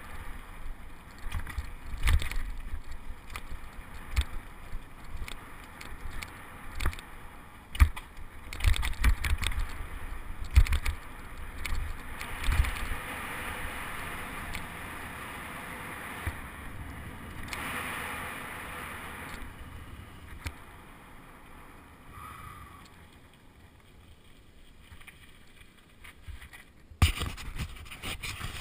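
Mountain bike rolling fast down a dirt trail, heard from a helmet-mounted camera: the bike rattles and knocks over the bumps, then gives a steadier rolling noise as the ground smooths out. It goes quieter, and a single sharp jolt comes near the end.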